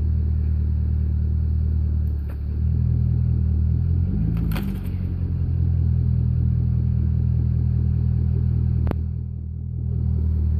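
Chevrolet Corvette C6's V8 engine idling with a steady low rumble, its note briefly rising and settling about four seconds in. A few sharp clicks are heard over it.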